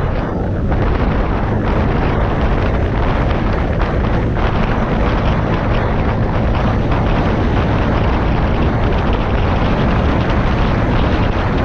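Heavy wind buffeting on the microphone while riding a Honda PCX 125 scooter at speed, with the scooter's engine and road noise running steadily beneath it.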